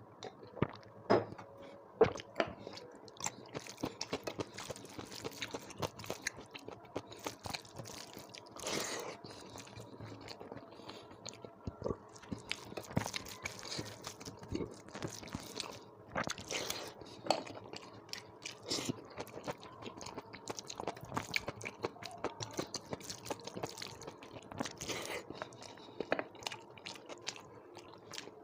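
Close-up chewing and biting: wet smacking and crunching of mouthfuls of rice, dal and vegetables, in many short irregular clicks with a few louder bites.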